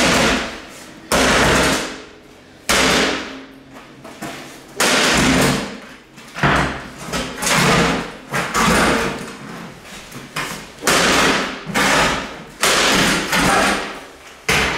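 Sledgehammer blows on a small steel wall safe: about ten heavy strikes, one every second or two, each ringing briefly.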